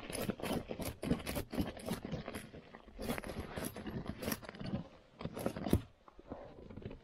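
Canvas cover rustling and scraping while a nylon tie-down strap is pulled through its buckle and cinched down. It comes as an irregular run of short scrapes and clicks.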